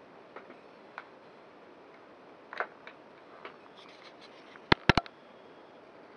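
Scattered small clicks and knocks of hands handling small electronic gear, with three sharp, loud clicks in quick succession about five seconds in.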